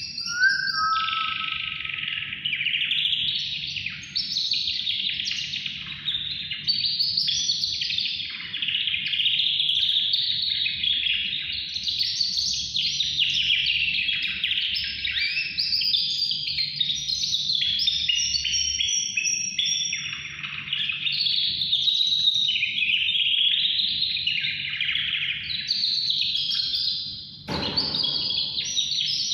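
A caged pet yellow songbird singing a long, almost unbroken song of rapid trills and whistled notes, with a brief pause near the end.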